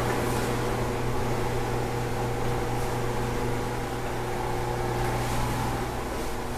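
A steady mechanical hum: a strong low drone with a few fainter steady tones above it and an even hiss.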